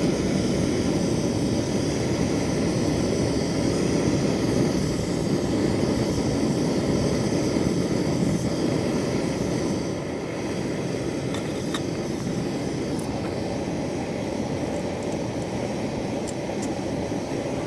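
Portable backpacking gas stove burner running with a steady rush, easing slightly about ten seconds in, with a few faint clicks near the end.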